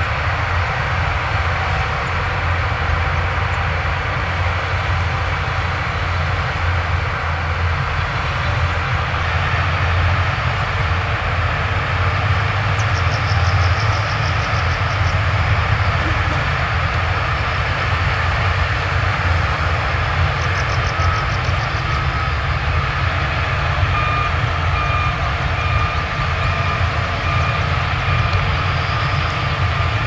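Heavy diesel earthmoving machinery running steadily under load. Near the end a reversing alarm beeps about once a second.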